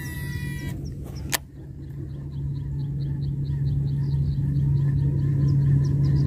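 Cast with a baitcasting reel: the spool whirs for under a second, and a sharp click comes about a second later. Under it a steady low drone grows louder, and fast, regular high ticks start about two seconds in.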